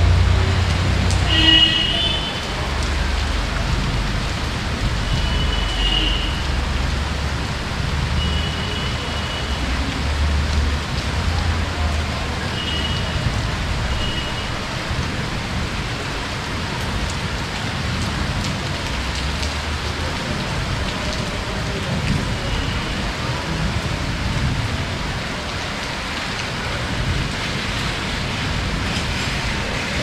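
Heavy rain falling steadily, with a low rumble underneath for the first two-thirds and a few brief high chirps.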